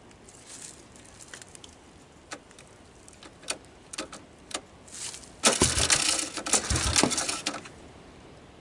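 Hands working on a three-wheeler's parts: scattered small clicks and taps, then about two seconds of loud scraping and rattling with two low thumps in it.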